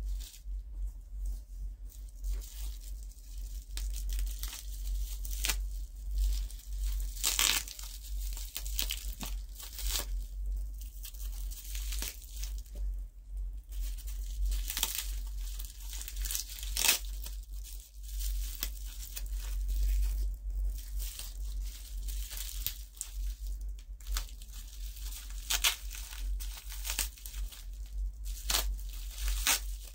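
Packing tape being cut and torn off bubble wrap, with irregular rips and crinkling of the plastic over a steady low hum. The tape is wound between every layer of the bubble wrap.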